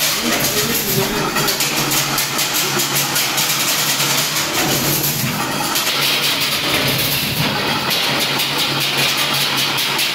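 Automatic chain-link fencing machine running, a steady motor hum under a fast, even clatter as it weaves wire into mesh.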